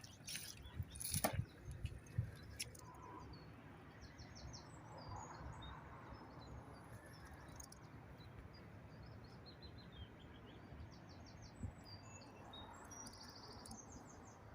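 Small songbirds singing, with quick trilled phrases repeated again and again, over a faint low rumble. A few sharp knocks in the first couple of seconds.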